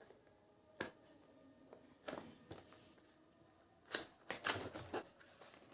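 Cardboard box and packaging being handled and opened by hand: scattered faint taps and clicks with light rustling, a quick run of them near the end.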